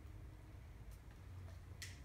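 Faint clicks of dry cereal pieces in a small plastic bowl, a weak one about a second in and a sharper one near the end, over a low steady hum.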